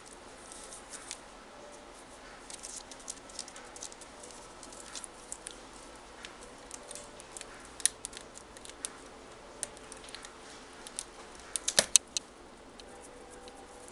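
Beagle puppy's claws clicking and tapping irregularly on a hard tabletop as it walks and sniffs, with a quick cluster of louder clicks about twelve seconds in.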